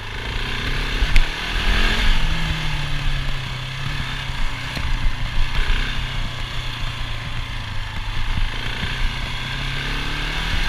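Husqvarna 701 Enduro LR's single-cylinder engine running as the bike rides along at a steady pace, heard from on board. The engine note settles to a steady pitch about two seconds in.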